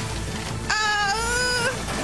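Cartoon soundtrack: a steady rushing sound effect under music, and about a second in, a girl's strained high cry lasting about a second.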